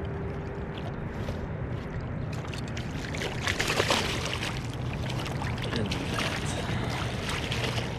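Water splashing and sloshing at a float tube as a hooked largemouth bass is brought in, with a louder flurry of splashing about three and a half seconds in.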